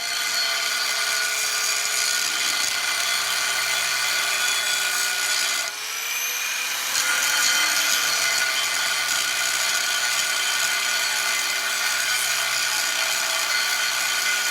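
Chop saw running continuously while cutting a metal bar, with a steady whine over a harsh grinding noise. Its pitch dips briefly between about six and eight seconds in, as it would when the blade is loaded in the cut.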